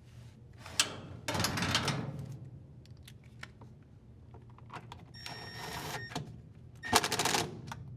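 Cordless impact driver running in short bursts as it drives a screw home into a washer transmission, with clicks of metal parts being handled between the bursts.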